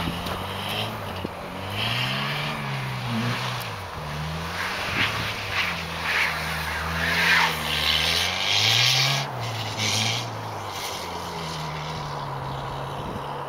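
Front-wheel-drive car's engine revving up and falling back again and again as it slides and spins its wheels through snow, with a hiss from the tyres churning snow between about two and eight seconds in.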